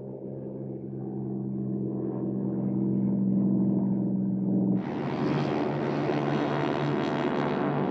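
Propeller-aircraft piston engines droning steadily and slowly growing louder. About five seconds in the sound cuts abruptly to a harsher, fuller engine noise with more hiss.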